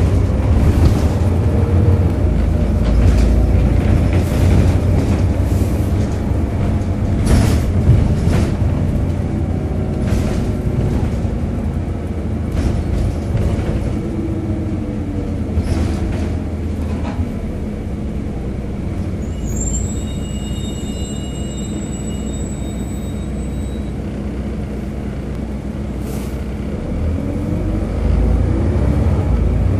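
Volvo B7RLE single-decker bus, with its 7-litre straight-six diesel, running as heard from inside the saloon: a steady low rumble with frequent body rattles. The bus eases off about halfway through, a brief high-pitched squeal sounds around twenty seconds in, and the engine note rises again near the end.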